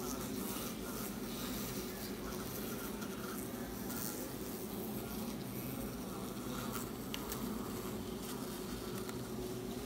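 Steady buzzing hum of many honeybee workers close to the microphone, with a few faint clicks.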